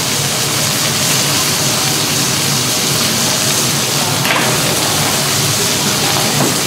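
Steaks and lamb racks sizzling on a restaurant's open grill: a steady loud hiss, with light clicks of the cook's tongs about four seconds in and again near the end.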